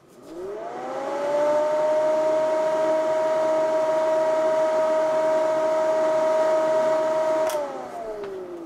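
Cooling fan of an XForce CB amplifier powered up for a test: it spins up as a whirring hum that rises in pitch over about a second and a half, runs steadily, then winds down with falling pitch after the amp is switched off near the end.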